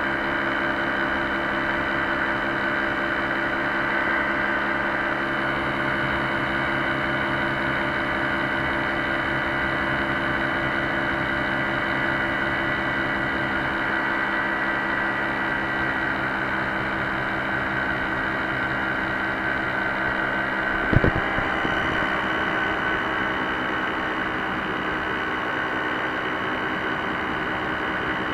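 Paramotor engine and propeller running steadily in flight, heard close up from a camera mounted on the frame. A short sharp click comes about 21 seconds in, after which the engine note changes slightly.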